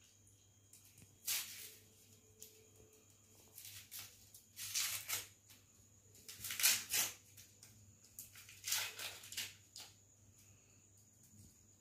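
Dry, papery garlic skins crackling and rustling as cloves are peeled by hand, in about six irregular bursts.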